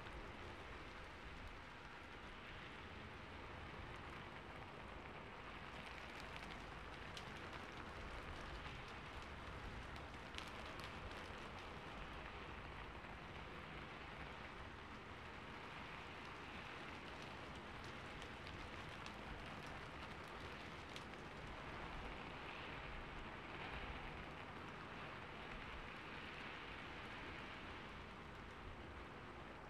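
Faint, steady rain falling: an even hiss with faint scattered drop ticks.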